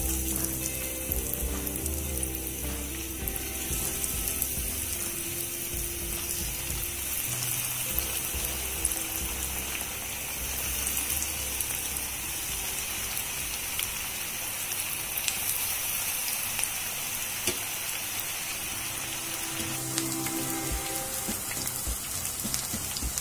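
Batter-coated onion rings deep-frying in hot oil: a steady, dense crackling sizzle.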